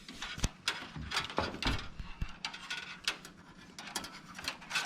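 Irregular clicks and rattles of cables and hardware being handled and pushed around inside a desktop PC case while the wiring is routed.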